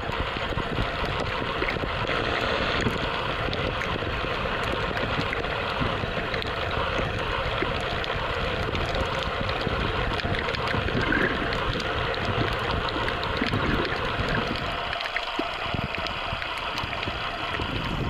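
Underwater ambience from a camera submerged on a shallow reef: a steady rushing hiss of water, scattered with many faint clicks and crackles.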